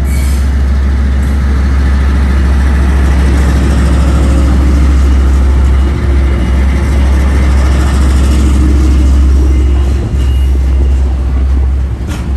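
Two KiwiRail DL-class diesel-electric locomotives hauling a container freight train close by: a deep, steady engine drone with the rumble of the rolling wagons. A short clatter comes just before the end.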